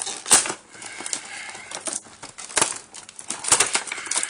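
Action figure packaging being torn open by hand: rustling, crackling plastic and cardboard with several sharp clicks and snaps.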